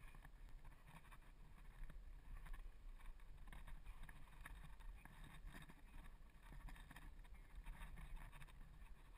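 Near silence, muffled by a sealed waterproof camera housing: a faint low rumble with soft scattered scuffs and knocks as the climber shifts on the rock.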